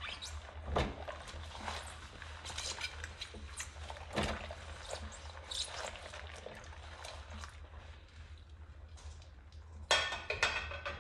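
Rubber-gloved hands scrubbing a ceramic plate with a sponge over a sink of soapy dishwater: short scrapes and rubbing, water dripping and sloshing, and a louder splash of water near the end.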